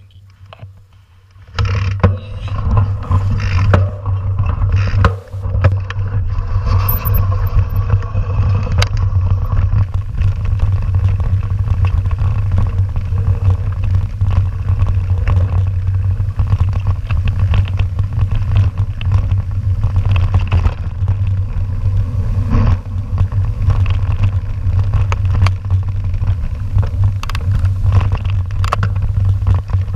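Mountain bike rolling fast over a dirt and stone forest track, heard through a camera riding on the bike: a steady low rumble with constant rattling and short knocks from the bumps and stones. It starts abruptly about a second and a half in.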